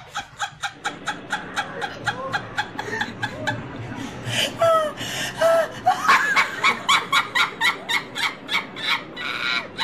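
Laughter: people laughing in quick, even pulses, with a few short high sliding sounds about halfway through.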